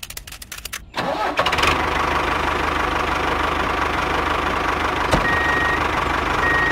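Engine cranking with rapid clicks, then catching about a second in and running steadily.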